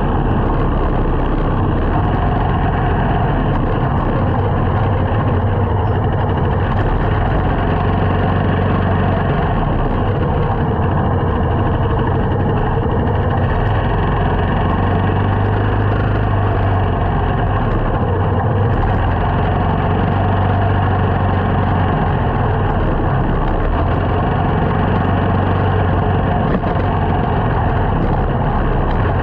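Small motorcycle's engine running steadily, heard from a helmet-mounted camera, with a constant rush of wind and road noise over it.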